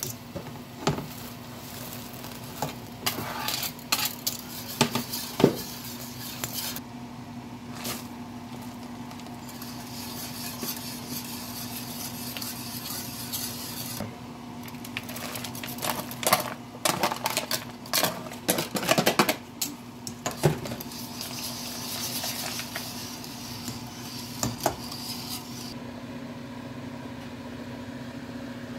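Wire whisk clinking and scraping against the sides of a stainless-steel soup pot in two spells of quick strokes, the second about halfway through, over a steady low hum.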